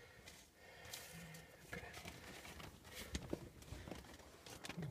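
Faint, scattered rustles and small clicks of a person handling a paper logbook and shifting position in a small rock space.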